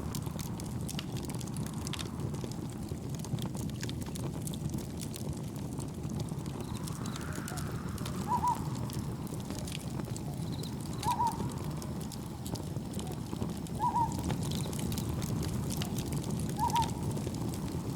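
Campfire crackling with small scattered pops over a steady low rush of wind and gentle waves. From about eight seconds in, a short animal call repeats every few seconds, four times in all.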